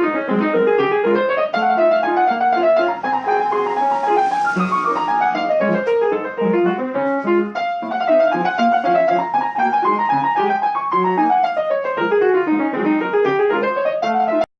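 Piano playing fast arpeggio runs that sweep up and down the keyboard, cutting off abruptly near the end.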